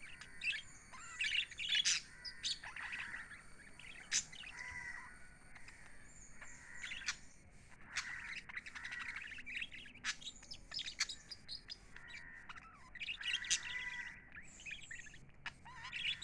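Small pet parrots chirping and chattering, a busy run of high chirps and short sharp clicks with brief quieter spells.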